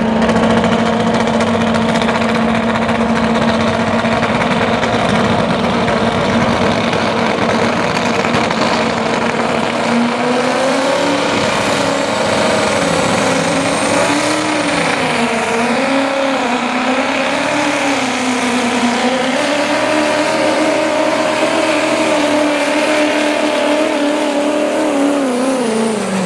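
Turbocharged diesel pickup engine at full throttle, pulling a weight-transfer sled. The revs hold high and steady, then rise and fall repeatedly as the truck fights for traction under the growing load, and steady again before the engine drops off near the end as the truck stops.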